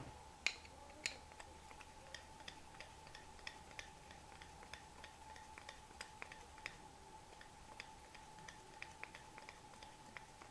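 Small irregular clicks and taps of a cistern screw being handled and fed through a seized two-piece screw, with two sharper clicks in the first second.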